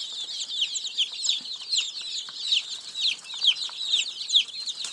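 A flock of baby poultry peeping together: a dense chorus of short, high, falling chirps, many overlapping.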